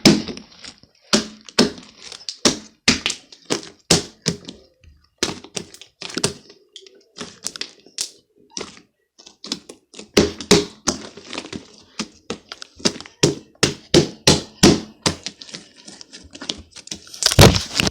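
Slime being squeezed and slapped roughly by hand: irregular runs of wet clicks and smacks, a few a second, with short pauses. A louder knock near the end as the phone is dropped.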